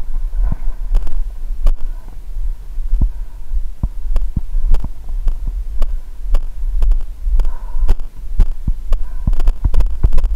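A runner's footfalls on a dirt trail, picked up as thuds through a body-worn camera about two to three times a second, over a steady low rumble on the microphone.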